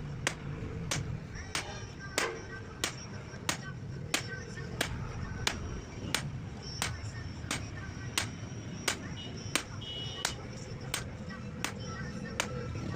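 A blacksmith's hammer striking hot steel on an anvil in a steady rhythm, about three blows every two seconds, over a low steady rumble.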